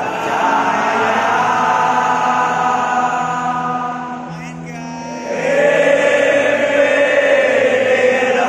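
Large crowd of football supporters singing a chant together in unison. About halfway through the singing dips, then swells back louder.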